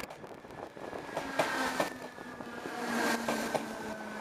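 Dublin DART electric commuter train running, a steady electric motor whine that drops slightly in pitch, with a few clicks of wheels over rail joints.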